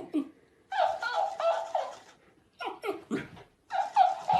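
A dog making a series of pitched whining, yowling calls in three groups, the longest held for about a second.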